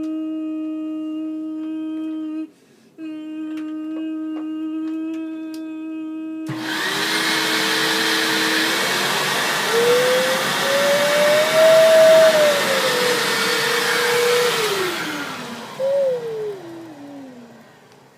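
A steady pitched tone, broken once briefly, then a Hoover upright vacuum cleaner switches on about six seconds in: a loud rush of air with a motor whine that rises and falls in pitch. Near the end it shuts off and winds down, its whine falling away.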